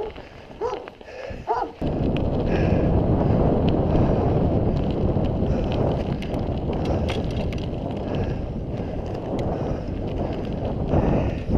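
Wind buffeting the microphone of a handlebar-mounted action camera, mixed with tyre rumble from a mountain bike rolling at speed. The loud rushing starts suddenly about two seconds in and holds steady after that. Before it there are a few short pitched sounds.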